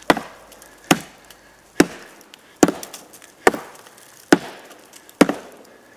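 A Tops Knives Bushcrafter Kukri 7.0 chopping into a solid downed log: seven sharp strikes at an even pace, a little over one a second.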